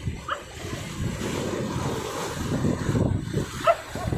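Sea surf washing and breaking, a steady rush of churning water.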